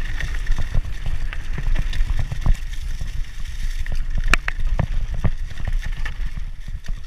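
Mountain bike riding fast over a rough dirt trail, heard from a helmet camera: wind buffeting the microphone with a steady low rumble, and frequent clicks and knocks as the bike rattles over the ground, the sharpest a little over four seconds in.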